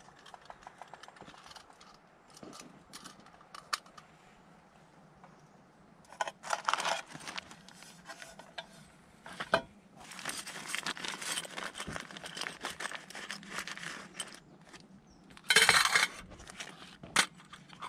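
Rustling and crinkling handling noise with scattered small clicks and knocks, in bursts: one about six seconds in, a longer stretch from about ten to fourteen seconds, and the loudest, a short sharp rustle, about sixteen seconds in.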